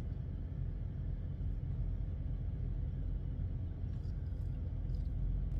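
A semi-truck's diesel engine idling, heard inside the cab as a steady low rumble.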